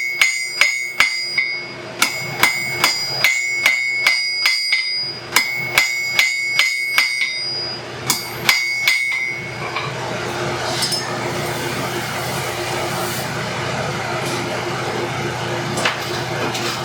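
Blacksmith's hammer striking hot steel on an anvil while squaring up a bar: quick runs of blows, about three a second, each with a bright anvil ring, broken by short pauses. After about nine seconds the hammering stops and a steady hum with a rushing hiss carries on.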